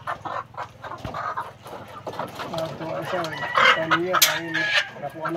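A flock of caged white hens clucking and squawking while birds are handled and put into wire layer cages, with knocks from the cage wire. The calls grow louder about halfway through, and there is a sharp crack near the end.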